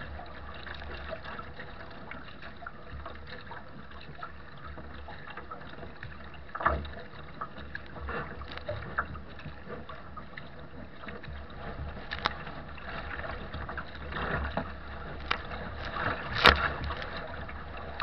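Strong wind buffeting a deck-mounted microphone on a sea kayak, with a steady low rumble and rushing water along the hull. Choppy waves slap against the bow now and then, the loudest slap coming near the end.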